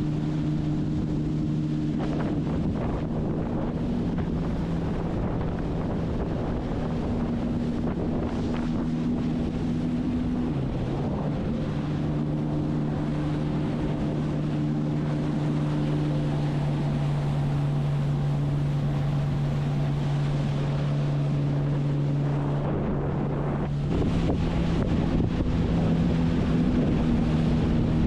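Sea-Doo personal watercraft engine running steadily at cruising speed, with wind buffeting the microphone and water rushing past. The engine note drops slightly about ten seconds in, then picks up and gets louder near the end as the throttle is opened.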